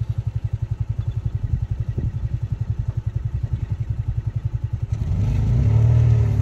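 Golf cart running with a rapid, even low pulsing, growing louder and steadier about five seconds in as it picks up speed.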